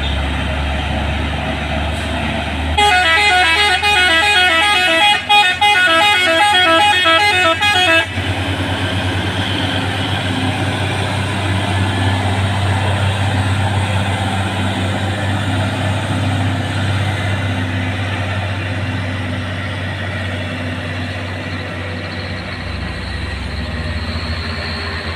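A multi-tone musical truck or bus horn plays a rapid warbling tune of alternating notes for about five seconds, starting about three seconds in. Around it, a heavy vehicle's engine runs steadily with a low hum.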